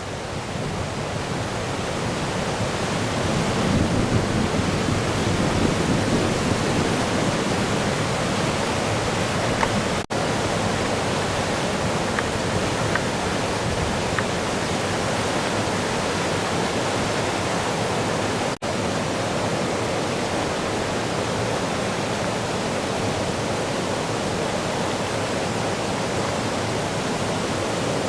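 The rain-swollen Shimanto River in flood after a typhoon: a steady, loud roar of fast-rushing floodwater. The sound cuts out for an instant twice, about ten seconds in and again around eighteen and a half.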